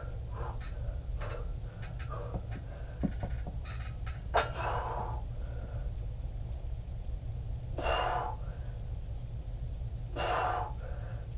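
A man breathing out hard twice, about two seconds apart, under the effort of lifting weights, after a few sharp knocks, the loudest about four seconds in. A steady low hum runs underneath.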